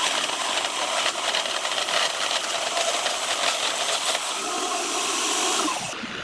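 A power tool running with a steady loud hiss, cutting off suddenly near the end.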